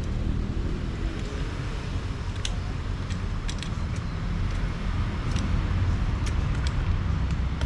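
A steady low engine-like rumble throughout, with several light, sharp clicks scattered through the middle, typical of small metal parts being handled.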